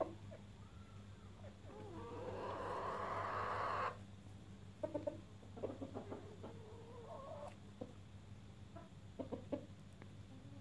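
Wyandotte bantam chickens clucking softly while foraging, short scattered clucks. About two seconds in, a louder rasping sound builds for about two seconds and then cuts off suddenly. A steady low hum runs underneath.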